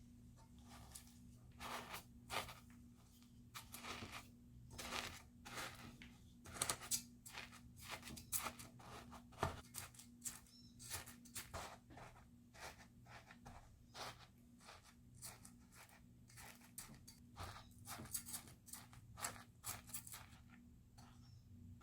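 Irregular rustling, crinkling and scraping of kitchen handling, in short uneven strokes, over a faint steady electrical hum.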